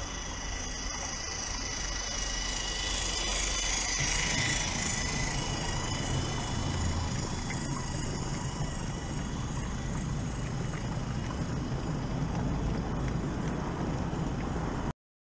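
A small garden-railway train approaching and rolling past close by, with a steady high whine and the low rumble of wagon wheels on the rails, loudest about four seconds in; the sound cuts off suddenly near the end.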